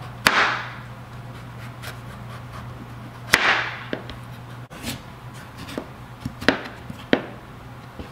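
Chef's knife slicing strips of hard skin off a butternut squash, the blade knocking sharply onto a plastic cutting board a handful of times at irregular intervals, over a low steady hum.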